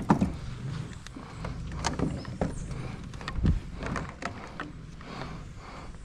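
Irregular knocks, clicks and thumps of handling, over a low rumble.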